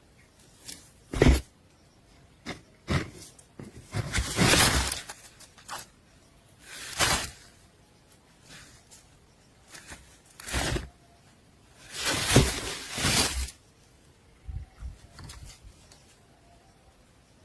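Scattered bursts of rustling and scratching, the longest about four and twelve seconds in: birds moving about in the nest.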